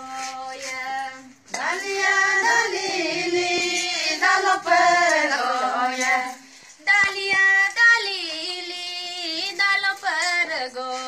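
A high voice singing a melody, with short breaks about a second and a half in and again around seven seconds in.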